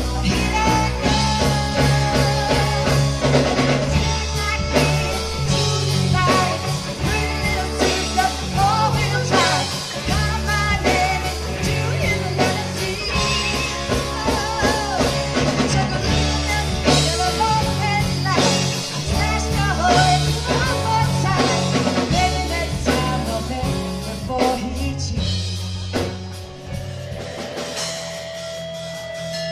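Rock song played by a full band: drum kit, bass and guitar with a singing voice. Near the end the drums and bass drop out and a guitar carries on alone.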